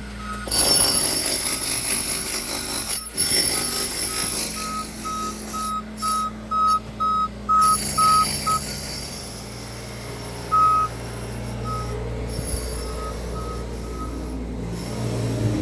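Bobcat S450 skid steer's diesel engine running while its backup alarm beeps repeatedly as it reverses. The beeping stops a little past halfway, then comes back for a few beeps near the end.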